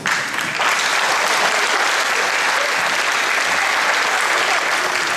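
Audience applauding; the clapping starts suddenly and holds steady.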